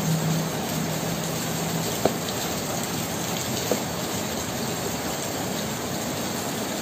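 Steady hiss of background noise, with two faint clicks, one about two seconds in and one a little past the middle.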